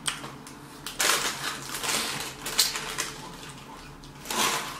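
Paper food wrapper crinkling and rustling as it is handled, in several irregular crackles, the loudest about a second in and near the end.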